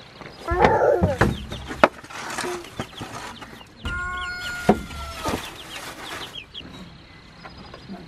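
Chickens clucking and squawking close by: a loud squawk about half a second in and a longer drawn-out call around four seconds, with short high chirps throughout. A few sharp knocks from the coop being handled.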